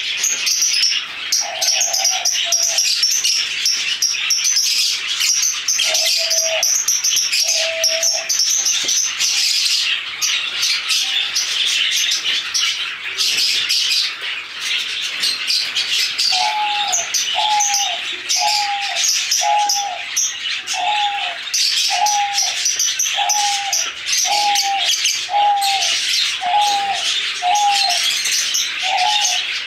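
Aviary birds chattering and chirping constantly. Partway through, a lower call starts repeating in a steady series of short notes, a little more than one a second, in the manner of a dove cooing.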